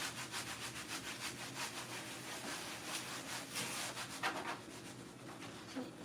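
A cloth wiping the outside of a refrigerator door: a quick swishing rub of rapid back-and-forth strokes, easing off near the end.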